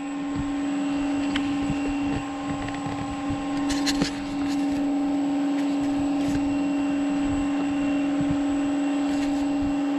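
Electric motor and propeller of a large electric AT-6 Texan II RC model spinning at idle throttle: a steady hum with a constant tone, and a few faint clicks around four seconds in.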